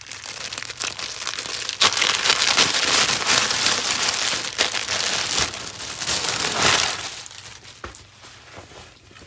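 Clear plastic packaging crinkling as it is handled and pulled open. It is loudest from about two seconds in and dies down near the end.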